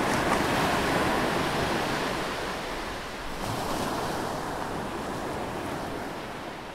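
Small waves washing onto a sandy beach: a steady surf hiss, slowly fading out.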